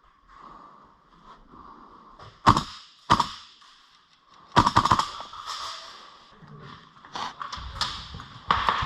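Gas blowback airsoft rifle shots, the loudest likely from a GHK AK74M: sharp cracks of the bolt cycling. Two single shots come about half a second apart, then a quick string of several shots, then more scattered cracks near the end.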